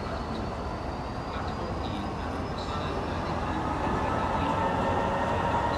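Freight train of covered steel-coil wagons rolling past: a steady rumble of wheels on the rails, growing a little louder near the end.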